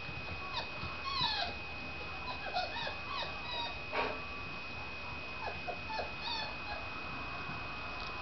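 Four-week-old Otterhound puppies yipping and whimpering as they play: many brief high squeaks that bend up and down in pitch, most of them in the first half.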